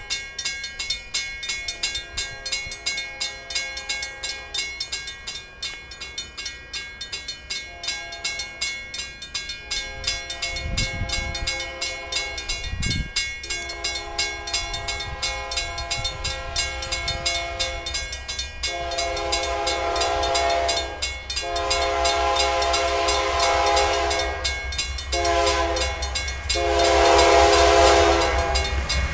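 A Union Pacific diesel locomotive's multi-chime air horn on an approaching coal train. It sounds in repeated blasts, faint at first and growing louder. From about two-thirds in it gives two long blasts, a short one and a long one, the pattern of a grade-crossing warning.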